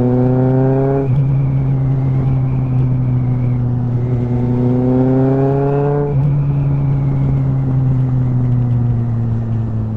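Kawasaki ZXR inline-four motorcycle engine running on the road, its pitch rising under acceleration and dropping sharply at upshifts about a second in and about six seconds in, with steady cruising between and wind noise underneath.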